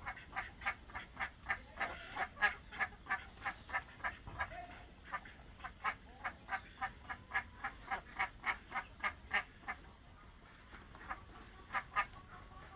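Domestic ducks quacking in a fast, steady series of short calls, about three a second, thinning to a few scattered quacks after about ten seconds.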